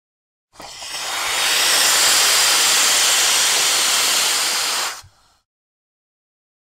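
A loud, steady hiss of steam that swells in over about a second, holds for roughly four seconds, and cuts off suddenly.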